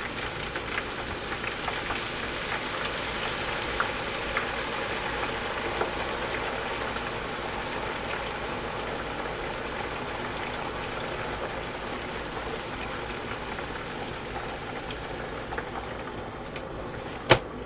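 Potatoes deep-frying in hot oil in an electric deep fryer: a steady hiss of bubbling oil with scattered small crackles. A single sharp click near the end.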